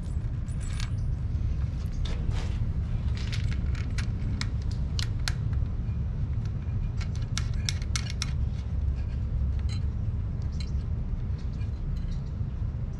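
Small metal hardware clicking and clinking in irregular bursts as a lock washer and nut are handled and fitted, over a steady low hum.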